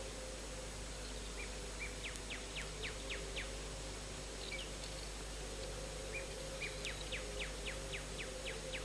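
A small bird twittering over steady tape hiss and hum: two runs of quick, short descending chirps, about four or five a second, the first near two seconds in and the second near seven seconds in.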